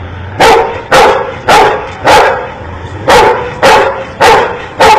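A dog barking eight short, sharp times about half a second apart, with a brief pause midway, counting out the number just called to it.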